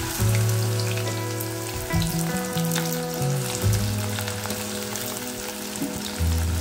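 Sliced okra dropped by hand into hot oil in a frying pan, sizzling with many small crackles. Background music with long held notes plays under it.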